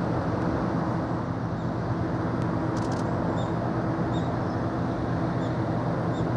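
Steady low machinery hum from the passing cruise ship Asuka II, several held low tones over a wash of noise. A few faint short high chirps sound in the middle.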